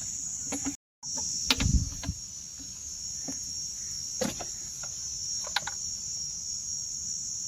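Sharp clicks and knocks of hand tools working a hose clip and the air-filter housing loose on a car engine, loudest about one and a half seconds in, then a few more scattered through. Behind them, insects chirr steadily in a high, continuous tone.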